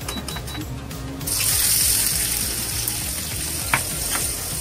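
Chopped onions tipped into hot oil in a steel wok start sizzling a little over a second in, a loud steady hiss. A spatula knocks against the pan twice as they are stirred near the end.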